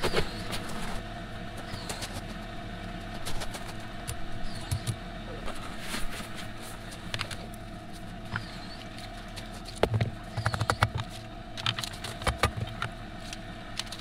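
Rubber mallet knocking a steel screed pipe down into a gravel paver base, in short clusters of taps about ten seconds in and again about twelve seconds in, over a steady mechanical hum. A bird chirps now and then.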